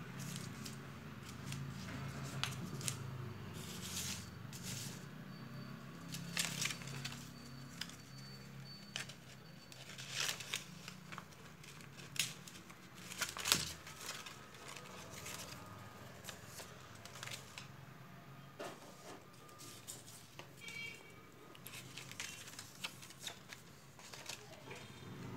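Stiff paper rustling and crinkling in irregular bursts with scattered sharp clicks as a folded paper pinwheel is handled, pinned through the centre and fitted onto a plastic straw. A steady low hum runs underneath.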